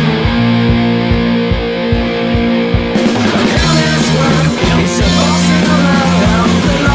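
Rock music with electric guitar and a steady drum beat; the full band with cymbals comes in about three seconds in.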